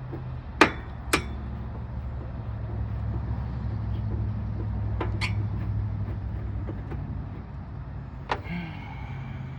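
Sharp metal knocks and clanks from handling the window air conditioner's metal cabinet and parts, two close together near the start, one midway and one near the end, over a steady low hum.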